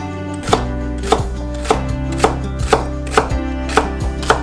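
Chef's knife slicing celery stalks on a wooden cutting board: a crisp chop about twice a second, over soft background music.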